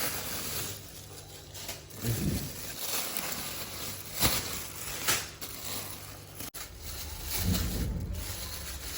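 Hands rustling and rubbing while handling whole spices, with a few sharp taps, the loudest about four seconds in.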